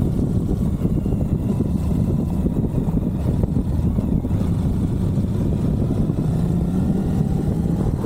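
Suzuki V-Strom 1050XT's V-twin engine running under way, heard onboard with a steady low rush of wind and road noise; the engine note rises slightly near the end.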